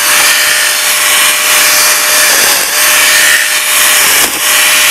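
King 18 V cordless one-handed mini chainsaw with an 8-inch bar running flat out and cutting thin branches, its motor pitch sagging briefly twice as the chain bites through the wood.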